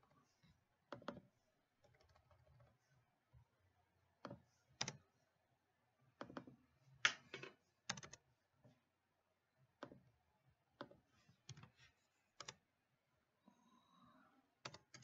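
Computer keyboard keystrokes and mouse clicks: about a dozen separate sharp clicks at irregular intervals, with quiet between them.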